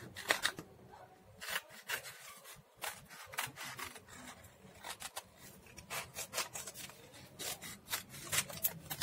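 Scissors snipping through a small piece of paper: a run of short, sharp cuts, irregular and in little clusters of two or three.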